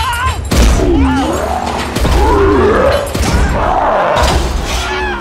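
Cartoon soundtrack of a wrecking ball slamming into an arena floor: three heavy crashing impacts, about half a second, two and almost four seconds in. Over music and gliding yelps from a character.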